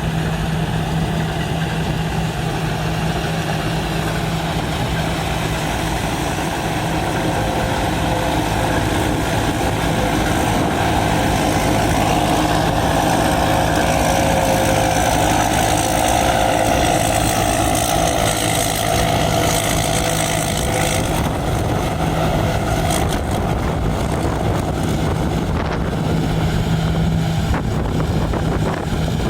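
Combine harvester's engine running steadily with a constant low hum, the machine working and getting somewhat louder through the middle stretch before easing off again.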